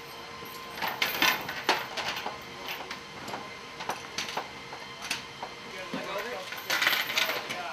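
Steel cargo tie-down chains and their tensioning devices clinking and clicking against an aircraft's metal cargo floor: a string of sharp metallic clinks, with a busier cluster near the end.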